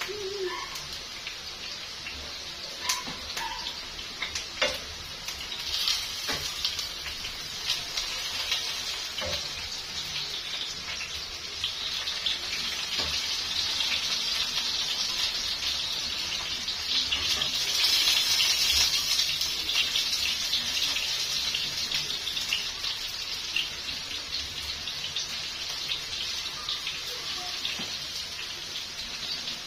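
Potato chips deep-frying in a wok of hot oil: a steady sizzle with small crackles, growing louder through the middle and peaking about two-thirds of the way in.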